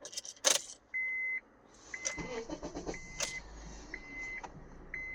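A 2012 Honda CR-V's dashboard chime beeping about once a second, with a click from the ignition key near the start. About two seconds in the engine cranks and starts on the newly programmed transponder key.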